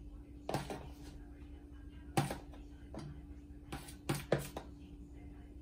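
Metal kitchen tongs clicking and tapping against the tray as crumbled cheese is spread over the food: about six sharp clicks spaced irregularly, over a faint steady hum.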